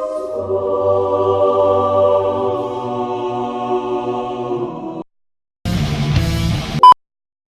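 Background music: a sustained chord pad that cuts off suddenly about five seconds in. After a short gap comes a brief, denser burst of a heavier piece, which ends in a sharp click with a short tone, the loudest moment.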